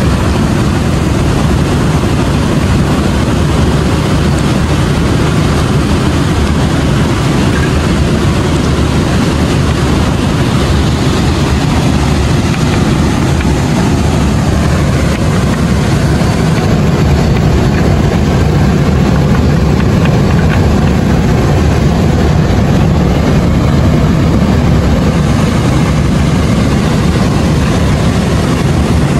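A mountain river cascading over boulders: a loud, steady, deep rush of water.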